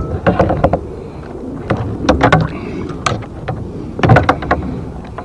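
Irregular knocks and clatter against a kayak hull while a freshly caught bass is handled aboard, in several short clusters over a steady low background noise.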